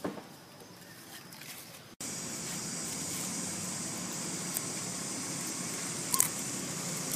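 Steady outdoor background hum with a high hiss over it, starting abruptly about two seconds in. Before it come faint rustles and clicks, and a brief high squeak is heard about six seconds in.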